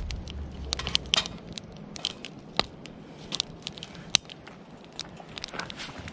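Wood campfire crackling, with irregular sharp pops and snaps from the burning wood.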